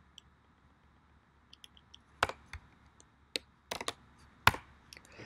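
Typing on a computer keyboard: scattered, irregular key clicks, with a few louder strokes between about two and four and a half seconds in.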